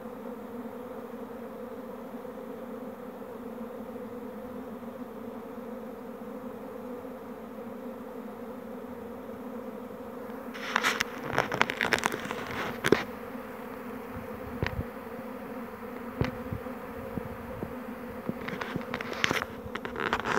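A honeybee swarm in flight, a steady buzzing hum of many bees, from a swarm still in the air before it clusters around its queen. About ten seconds in and again near the end, bursts of crackling, rustling noise sound over the hum.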